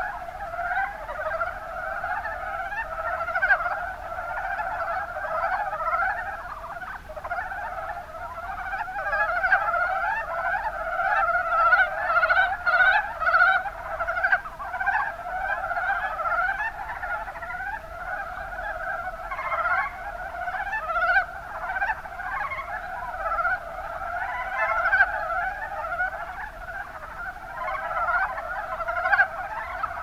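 Mountain brown frogs (Rana ornativentris) calling in a dense chorus: many short calls overlap without a break.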